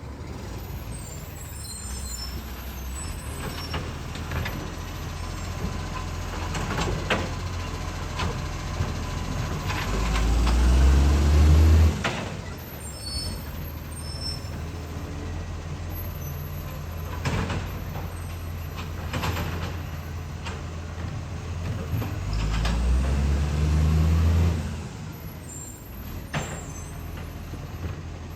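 International Acco garbage truck engine running with an exhaust leak, revving up twice for about two seconds each, with several sharp knocks and clunks in between.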